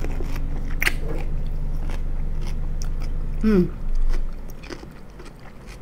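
A crunchy bite into a whole pickle a little under a second in, followed by chewing with small crunches. A brief voiced murmur comes around three and a half seconds in. A steady low hum stops near four seconds.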